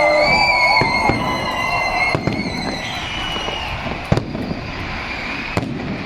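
Fireworks display: a continuous rumble of bursts with scattered sharp cracks, the sharpest about four seconds in, and high whistling tones over the first three seconds.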